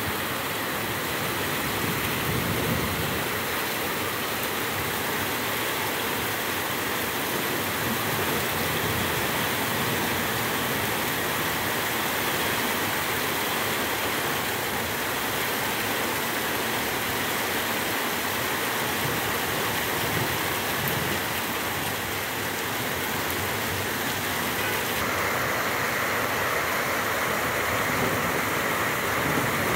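Heavy downpour: the steady, even hiss of rain falling.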